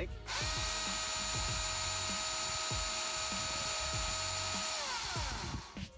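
Milwaukee M18 cordless electric chainsaw running at full speed with no load: a steady high whine that starts just after the beginning. Near the end the trigger is released and the pitch falls as the motor and chain coast down over about a second rather than stopping instantly.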